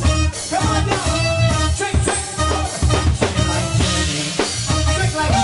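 Live dance band playing an upbeat number: electronic keyboard over a steady drum beat of about two beats a second, with heavy bass.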